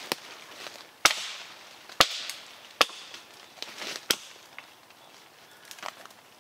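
Plumb double-bit axe chopping branches off a cut tree: about five sharp strikes, roughly one a second, with smaller knocks between them. The strikes stop after about four seconds.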